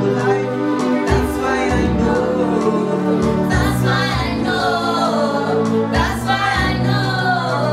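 Students singing a choir-style song into a microphone over electronic keyboard accompaniment, with sustained chords and a low thud every few seconds.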